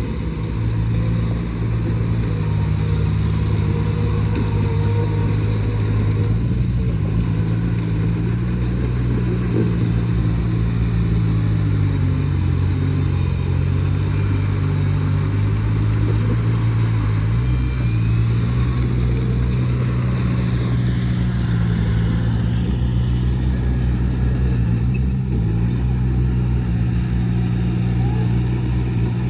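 Heavy diesel engine of earthmoving machinery running steadily under load. Its low note dips and recovers a few times, around the middle and again a little later.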